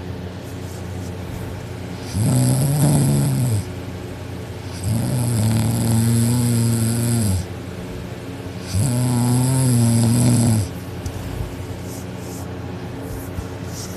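A teenage girl snoring heavily in deep sleep: three long, loud snores of about one and a half to two and a half seconds each, with short gaps between them, over a steady low hum.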